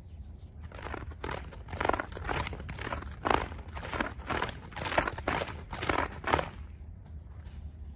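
Horse-training flag on a stick being shaken, making a run of quick swishes about two a second that stop about six and a half seconds in.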